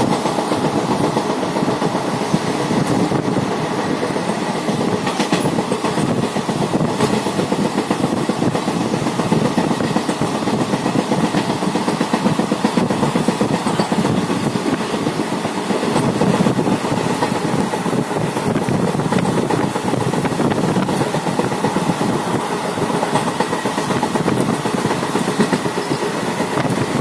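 Passenger train running along the line, heard from on board: a steady rumble with wheels clattering over the rails.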